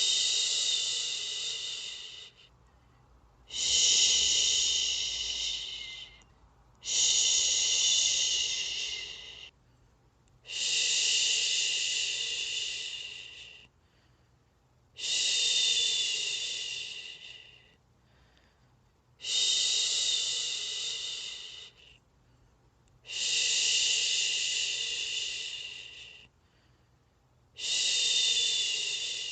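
A person shushing, 'shhh', for a baby to fall asleep. There are eight long hissing shushes, each starting sharply and fading over two to three seconds, with a short breath-length pause between them.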